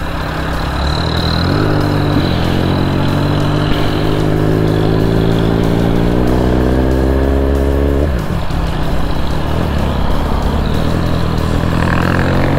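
Motorcycle engine accelerating hard, its pitch climbing steadily, then dropping sharply about eight seconds in as it shifts up and climbing again, with wind noise rushing past.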